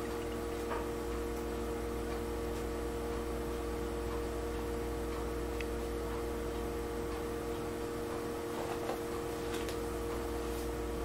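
Steady electrical hum of several even tones, with a few faint ticks scattered through it.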